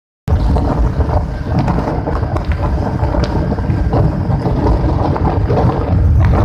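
Passenger train running: a loud, steady low rumble with scattered rattling clicks.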